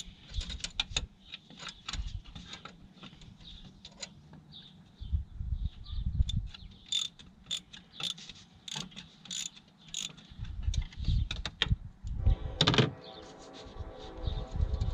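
Hand ratchet clicking in irregular runs as a long alternator mounting bolt is backed out, with metallic taps and knocks of the tool in the engine bay and one louder knock about twelve and a half seconds in.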